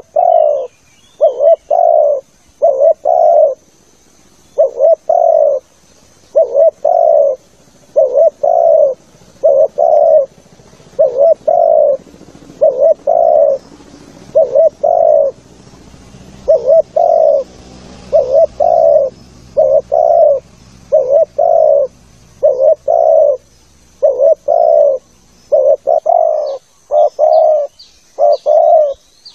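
Spotted dove cooing over and over, in phrases of two or three low notes, a new phrase every couple of seconds. Faint high chirps of small birds come in near the end.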